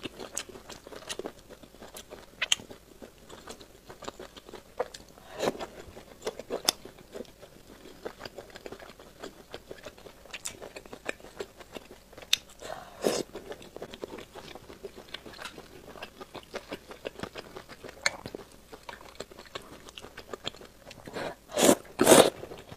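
A person eating close to a lapel microphone: steady wet chewing with many small mouth clicks and occasional bites into soft food. Near the end, two loud slurps as a mouthful of noodles is sucked in.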